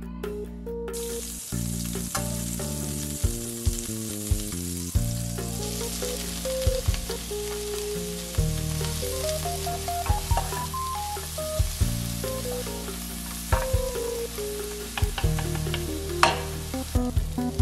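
Butter and chopped mushrooms sizzling in hot oil in a frying pan, the sizzle starting about a second in. Sharp taps and scrapes from a wooden spatula stirring come through it, over background music with a melody.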